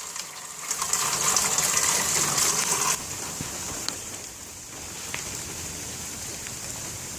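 Storm runoff water gushing steadily, loud for the first three seconds and then settling to a lower rush.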